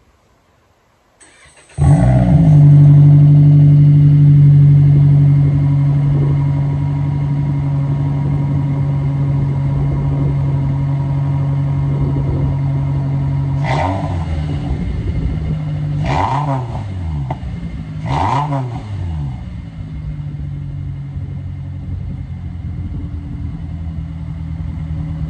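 Toyota Corolla's four-cylinder engine, its exhaust straight piped, starting up about two seconds in and then idling loudly and steadily. The engine is blipped three times, about fourteen, sixteen and eighteen seconds in, each rev rising and falling quickly, before it settles back to idle.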